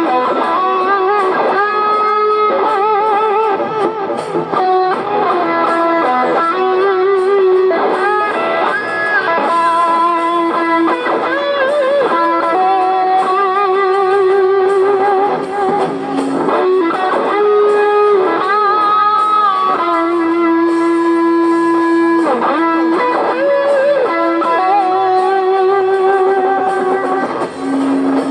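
Electric guitar playing a lead melody through a small amplifier and effects pedals, with held notes bent and shaken with vibrato.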